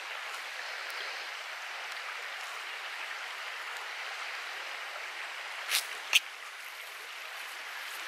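Quiet woodland ambience: a steady, even hiss, broken by two short crackles a little after the middle.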